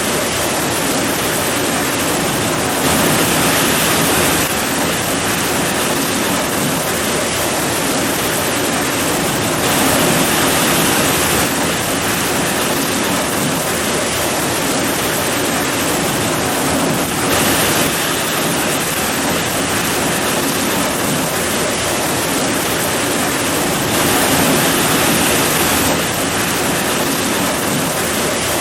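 Heavy rain pouring steadily, a dense even hiss, growing briefly a little louder a few times.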